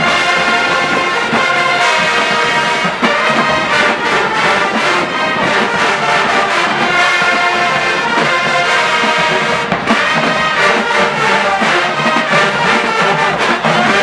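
Historically Black college show-style marching band playing loud brass music: trombones and trumpets over a steady drum beat.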